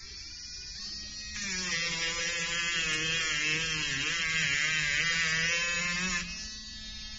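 Handheld electric rotary tool spinning a sanding band on a sanding drum, running freely, then sanding a metal block from about a second in for some five seconds: louder, its whine dropping a little in pitch and wavering under load. Near the end it is lifted off and runs freely again.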